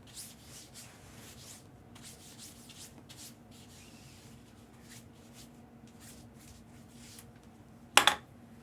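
Trading cards and foil pack wrappers being slid and rubbed by hand: a run of soft, quick swishes that thins out after about three seconds. Near the end comes one short, loud handling sound.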